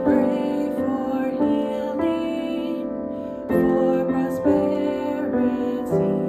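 A woman singing a slow song while accompanying herself on piano, with new chords struck every second or so.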